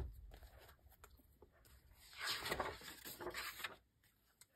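A page of a hardcover picture book turned by hand: a faint paper swish and rustle starting about two seconds in and lasting about a second and a half.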